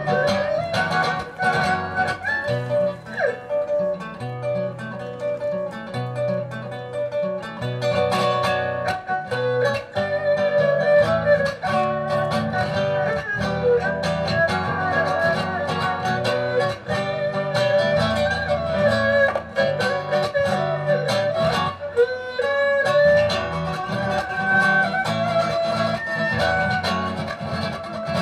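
Erhu and acoustic guitar duet: the erhu plays a bowed melody with slides between notes over plucked guitar accompaniment.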